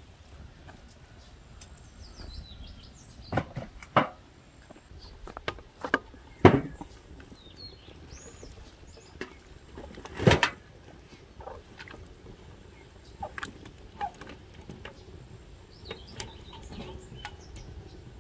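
Peach slices pushed off a metal tray into a large aluminium pot: a handful of knocks and clinks of metal on metal and fruit dropping in, the loudest about ten seconds in. Birds chirp in the background.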